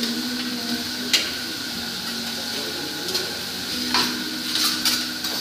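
Diced meat and vegetables sizzling on a teppanyaki steel griddle, with a metal spatula and fork clicking and scraping against the plate a few times, the sharpest about a second in and several around four to five seconds in.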